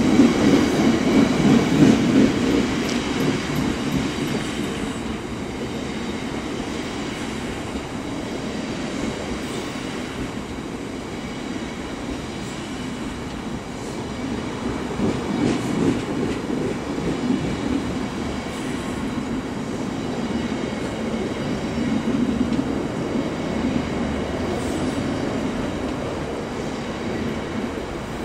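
Loaded biomass hopper wagons of a long freight train rolling steadily past close by, their wheels rumbling and clattering on the rails. It is loudest in the first couple of seconds and swells now and then, with a faint high wheel squeal in the first few seconds.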